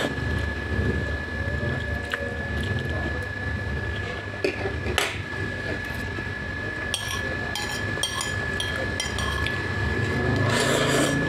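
Utensil clinking and scraping on a ceramic plate, a few separate clicks and then a quick run of them. Near the end comes a rushing slurp as the plate is tipped to the mouth. A steady thin high tone and a low hum lie under it.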